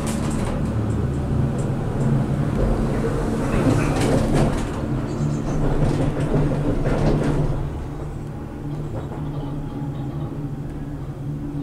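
Cable-car gondola rumbling and clattering from inside the cabin as it runs through the station's wheel conveyor, with a steady low hum and scattered clacks. The clatter eases about two-thirds of the way through, leaving a steadier, quieter rumble.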